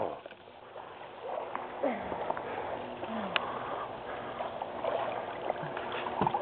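Pool water gently lapping and sloshing around a plastic backboard floating with a person lying on it.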